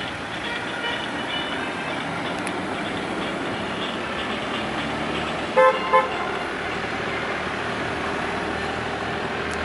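A slow motorcade of cars driving past with horns honking: a steady din of engines and scattered horn toots, with two loud short horn blasts a little past halfway.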